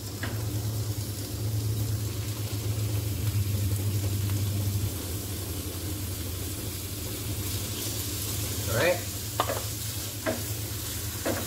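Chicken pieces sizzling as they are tipped into hot oil with softened onions and garlic in a frying pan, over a steady low hum. Near the end a spatula stirs and scrapes them around the pan.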